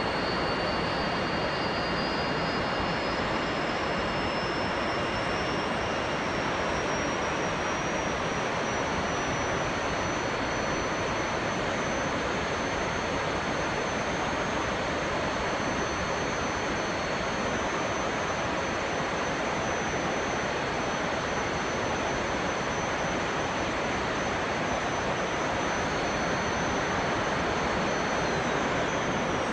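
Jet engine noise: a steady rush with high whining tones that climb in pitch over the first ten seconds or so, then hold level.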